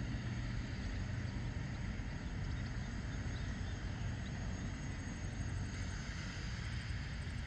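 Cessna 402B's two turbocharged six-cylinder piston engines at takeoff power: a steady drone with a low hum as the twin runs away down the runway.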